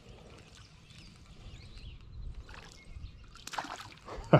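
A hooked crappie splashing at the surface as it is reeled in to the bank: faint at first, then a few sharp splashes in the last second, the loudest near the end.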